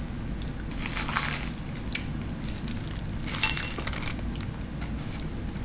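Takeout food packaging crinkling and rustling as it is handled, in two noisy spells, about a second in and again past the middle, with a few light clicks in between.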